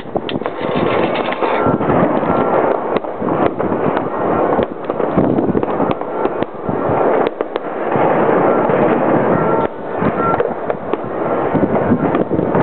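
Street riot noise: a loud, dense din broken by many sharp bangs and pops.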